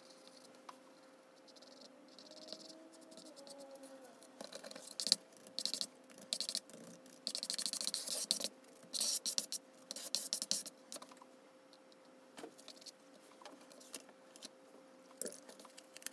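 Sped-up sound of acrylic painting on illustration board: brush and plastic-card strokes scraping and scratching through the paint. The strokes come in rapid bursts, thickest in the middle, over a faint steady hum.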